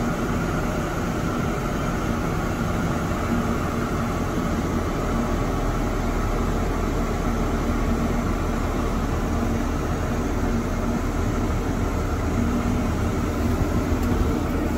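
JCB Fastrac tractor's diesel engine running steadily, heard from inside the cab, with a low hum under a constant noise.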